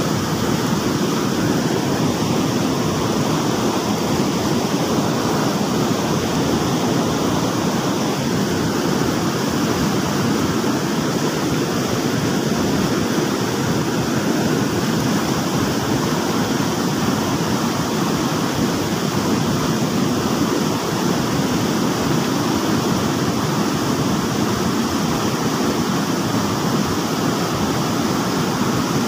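Fast-flowing river rushing steadily, turbulent white water close by.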